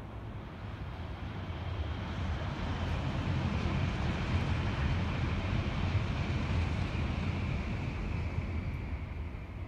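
A passing vehicle: a rumble and hiss that swells to a peak about midway, then fades.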